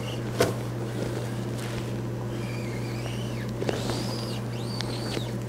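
A marking gauge is drawn along the edge of a rough-sawn board, with one sharp click about half a second in, over a steady low hum. A bird chirps several times in the second half.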